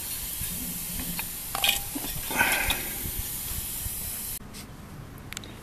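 Steady spraying hiss with a few faint knocks, which cuts off suddenly about four seconds in.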